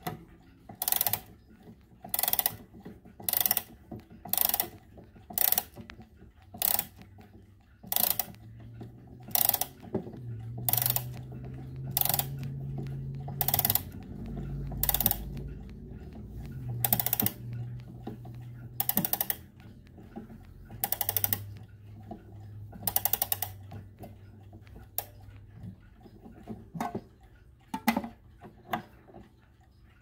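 The mainspring of a Howard Miller Arlington Hills triple-chime clock is being wound with a crank key. The movement's click and ratchet clatter in short runs of rapid clicks, about once a second, with each turn of the key. A low hum sits underneath through the middle stretch.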